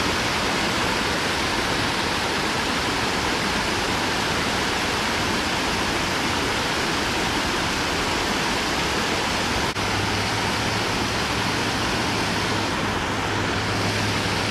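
Steady rushing of water pouring over a low spillway into a pond, with a brief click about ten seconds in.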